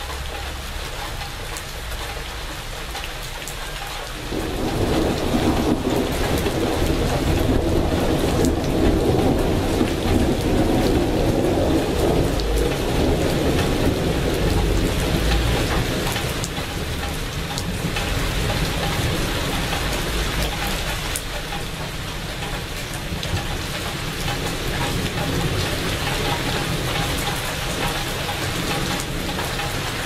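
Steady rain falling on leaves and puddles, with a long roll of thunder that starts suddenly about four seconds in and fades away over the next ten seconds or so.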